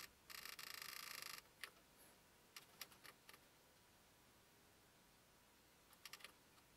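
Faint clicking of an Invertek Optidrive E3 inverter's keypad buttons being pressed: a quick run of clicks lasting about a second near the start, then a few single clicks.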